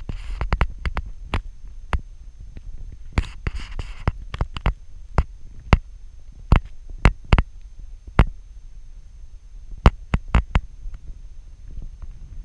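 Wind buffeting the camera microphone: a low rumble with irregular pops and thumps, several a second early on and thinning out after about eight seconds, and a brief gusty rush at about three seconds.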